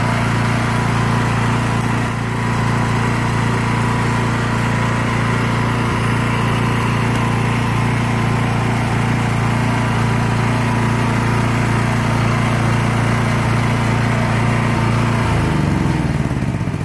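Pressure washer's small gas engine running steadily, then shut off about 15 seconds in and winding down.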